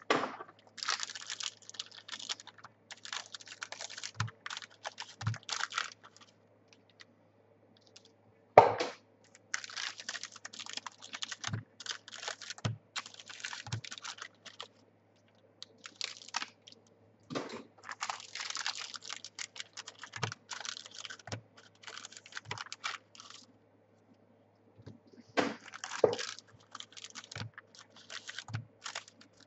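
Trading card packs and cards being handled: crinkling wrappers and rapid clicking of cards in irregular clusters, with a few louder knocks.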